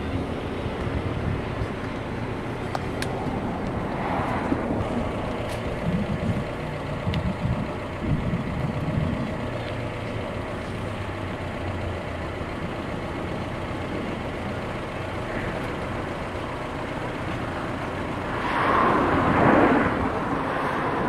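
An engine running steadily with a low hum, growing louder for a couple of seconds near the end.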